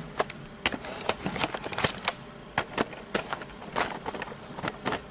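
A series of irregular light clicks and knocks, about a dozen, spread unevenly, with no motor running.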